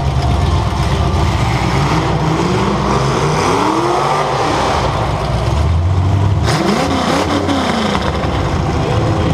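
Demolition derby car's engine heard from on board, running hard and revving up and down twice, with a sudden burst of noise about six and a half seconds in.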